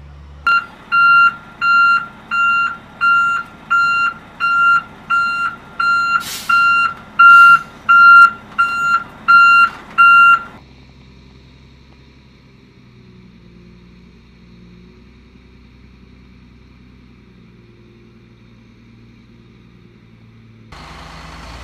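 Military truck's reversing alarm beeping steadily, about one and a half beeps a second, for some ten seconds while the truck backs up. After it stops, a low, steady engine rumble of heavy vehicles remains, and a louder engine noise comes in near the end.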